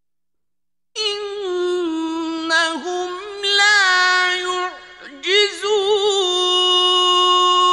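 A man reciting the Qur'an in Arabic in a high, melodic chanting voice. After about a second of silence, the phrase comes in long held notes with wavering ornamented turns, and the last note is held to near the end.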